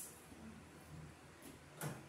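Faint handling sounds of electrical cable being worked at a wooden wall stud, with one sharp knock a little before the end.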